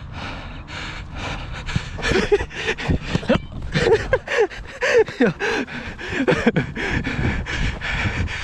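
A footballer's hard panting breaths and quick running footsteps on artificial turf, heard close up from a body-worn camera. Short shouts from other players come in the middle.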